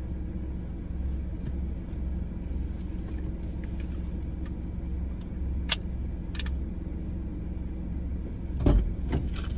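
Car engine idling steadily, a low hum heard from inside the cabin, with a couple of sharp clicks midway and a thump with more clicks near the end.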